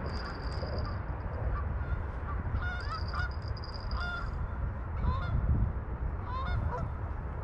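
A flock of geese honking, with many short calls overlapping one another over a steady low rumble.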